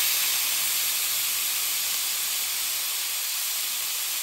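Bottom round roast searing in an oven-preheated cast iron pan: a steady sizzle that slowly eases off.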